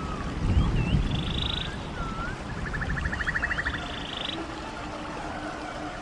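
Running stream water, with a brief surge about half a second in, under calls that alternate short swooping whistles with rapid buzzy trills.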